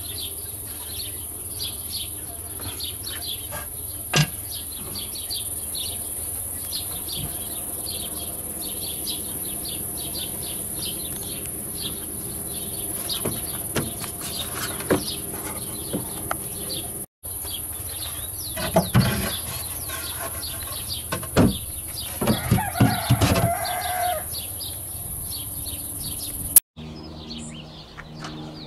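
Chickens clucking, with a longer sustained call about three-quarters of the way through, over many short chirps of small birds and a steady high-pitched hiss.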